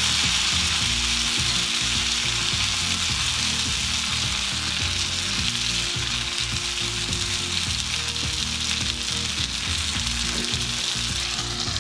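A whole marinated pomfret is shallow-frying in plenty of oil on a dosa tawa, sizzling steadily. A metal spatula moves and presses the fish against the pan.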